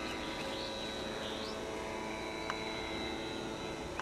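Electric motor and propeller of a large foam RC power glider running at steady throttle in flight, a steady whine with a couple of faint clicks.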